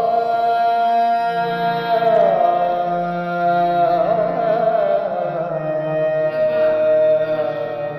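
Ghazal music opening: long, sustained melodic tones held over a steady drone, the melody sliding down about two seconds in and wavering in ornaments around four to five seconds in.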